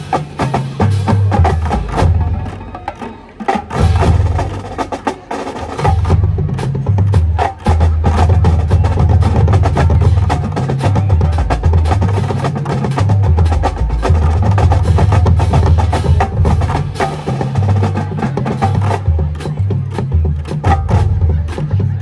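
High school marching band playing: horns holding pitched notes and a stepping low bass line over a busy drumline of sharp snare and rim strokes. The band gets quieter for a few seconds about two to five seconds in, then comes back full.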